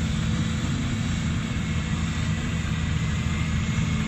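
Volvo EC210B excavator's diesel engine running steadily under load while the machine works, swinging and emptying its bucket of soil into a dump truck.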